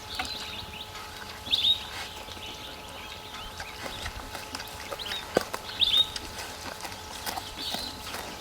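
A bird calling in short, high chirps that drop in pitch, coming in small clusters every second or two. Faint scattered clicks and a faint steady hum lie underneath.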